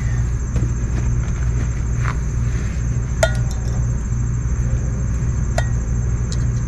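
Metal clinks of new brake pads being fitted into a brake caliper and its metal pad clips: two sharp ringing clinks, about three seconds in and again past five seconds, with a few lighter clicks, over a steady low rumble.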